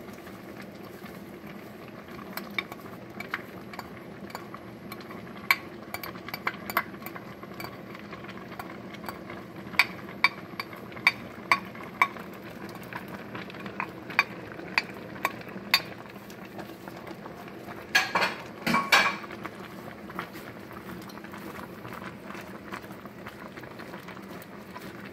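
A pot of vegetable soup simmering with a steady low bubbling while it is stirred, a utensil tapping and clinking against the stainless steel pot many times through the middle, with a few louder knocks about three-quarters of the way in.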